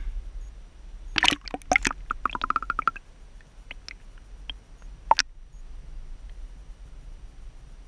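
Splashing and bubbling as an action camera is plunged into a shallow brook, about a second in, then scattered clicks and one sharp knock a little after five seconds, over a steady low underwater rumble.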